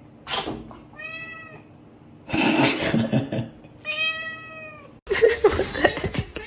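A cat meowing twice, two short calls about three seconds apart, with a louder burst of noise between them. Sharp noisy sounds follow near the end.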